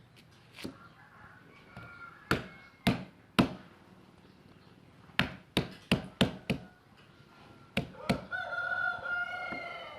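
Shallots being smashed: about eleven sharp knocks in uneven groups. Near the end a rooster crows for about a second and a half.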